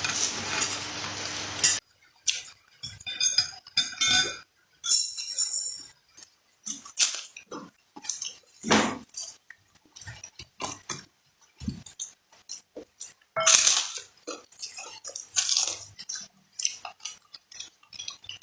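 Close-up eating sounds: irregular crunching of crackers and chewing of chicken feet, with clinks of cutlery and dishes. A steady sizzling hiss is heard at first and cuts off about two seconds in.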